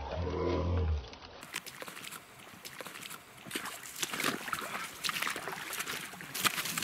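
Dry leaf litter and brush rustling and crackling in many small irregular snaps as someone scrambles through the undergrowth, after a brief low rumble at the start.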